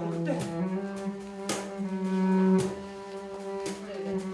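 Music with sustained low, held notes that change about once a second, each change starting with a short attack.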